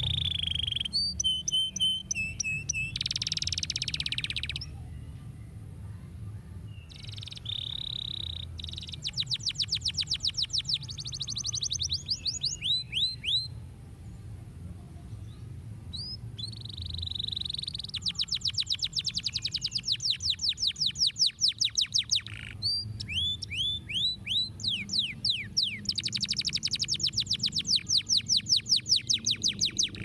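Domestic canary singing: long phrases of fast, rattling trills of quick descending notes, alternating with held whistled tones and short rising chirps, broken by a few brief pauses.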